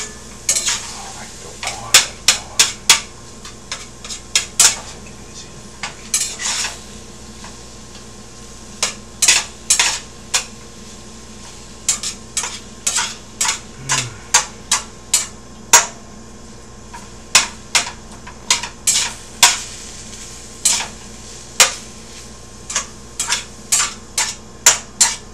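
A cooking utensil stirring ground turkey and tomatoes in a pan, knocking and scraping against the pan in many sharp, irregular strokes, with a lull of a few seconds about a quarter of the way in.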